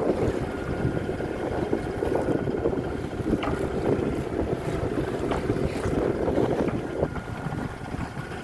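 Wind buffeting the microphone on a boat under way, with choppy water slapping and splashing against the hull.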